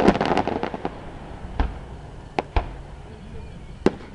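Aerial fireworks going off. A quick run of crackling pops comes right at the start, then four separate sharp bangs spread over the next few seconds.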